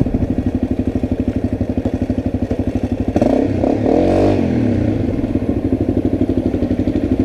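Honda CRF250L's single-cylinder four-stroke engine idling with an even pulse, revved up once about three seconds in and settling back to idle. It is running again after a roadside fix, the spark plug cleaned and WD-40 sprayed on.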